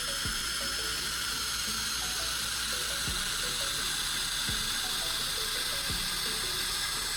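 Electric drill spinning a welding rod while pliers scrape the flux coating off it: a steady, high scraping hiss.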